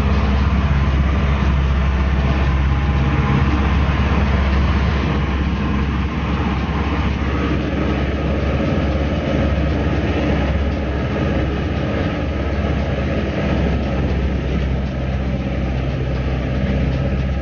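A motor vehicle running steadily: a low engine drone with road noise, held at an even level without rising or falling.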